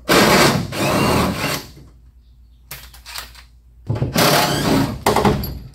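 Cordless impact wrench hammering in two bursts, each about a second and a half long, at the start and again near the end, undoing the rear leaf-spring shackle bolts.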